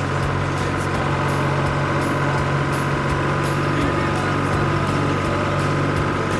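Vintage Massey Ferguson tractors' diesel engines running steadily as the tractors drive past.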